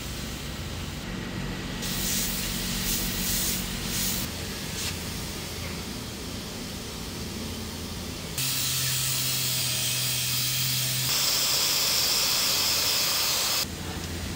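Workshop sanding. Under a steady low machine hum, a handheld pneumatic orbital sander runs with a loud, even air hiss from about the middle to near the end, its pitch shifting partway through. A shorter stretch of hiss comes a couple of seconds in.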